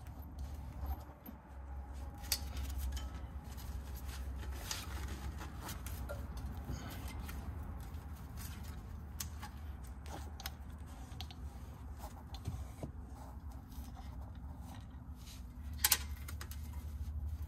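Scattered small clicks and rustles of gloved hands threading a heavy-duty plastic zip tie around a trailer axle, with one sharper click about 16 seconds in, over a steady low hum.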